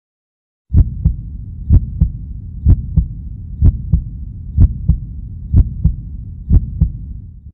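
Heartbeat sound effect: seven double thumps (lub-dub), about one a second, over a steady low rumble. It starts just under a second in and cuts off suddenly at the end.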